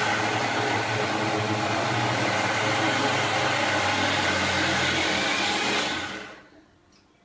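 Electric mixer grinder motor running steadily at full speed, grinding a wet batter of soaked moong dal and ragi flour. About six seconds in it is switched off and spins down.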